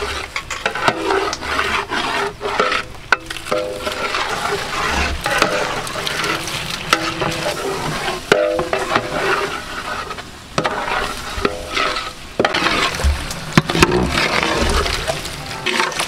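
Long metal ladles stirring and scraping onion-tomato masala frying in oil in large aluminium pots: a steady sizzle with repeated scrapes and knocks of the ladles against the pot sides.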